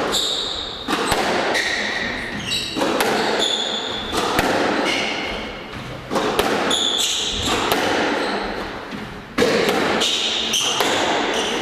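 Squash rally: a squash ball struck again and again by rackets and hitting the court walls, a string of sharp knocks, with short high squeaks between them.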